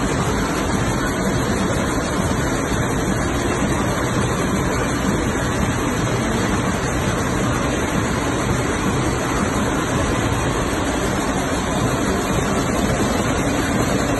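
Narrow-fabric looms weaving several tapes at once, running steadily with a loud, dense, unbroken mechanical din of weaving machinery.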